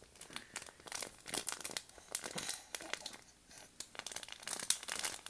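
Close, irregular rustling and crinkling, full of small sharp clicks and crackles, with no voice in it.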